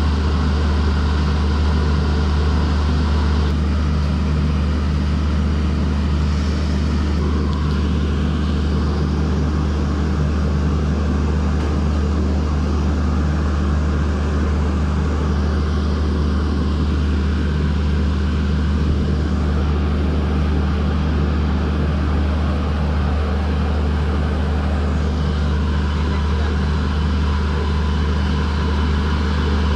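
Steady, unchanging low hum of railway machinery beside an Indian Railways electric locomotive rolling slowly past on the next track.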